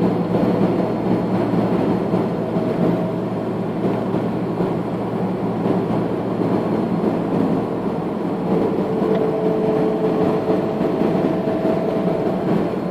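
Steady engine and road noise of a vehicle driving along, heard from inside the cab, with a faint engine hum that drifts slowly in pitch.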